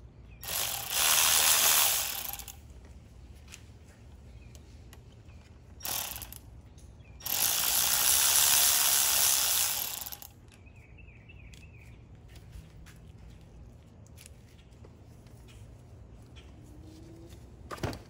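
Cordless electric ratchet spinning in two runs of two to three seconds each, with a short blip between them, backing out the bolts of an oil filter housing.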